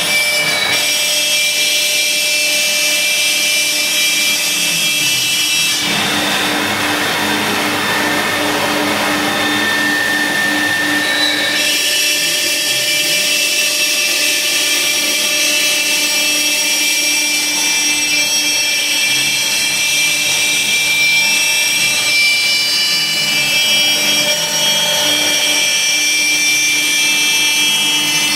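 Laguna Swift CNC router spindle running at high speed, a steady high whine, as the bit routes a logo into half-inch plywood. About six seconds in the cutting grows louder and harsher for some five seconds, then settles back.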